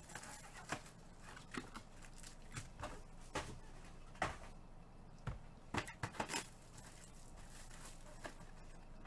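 Foil-wrapped trading-card packs crinkling and rustling as they are handled, in scattered short bursts with a few light clicks.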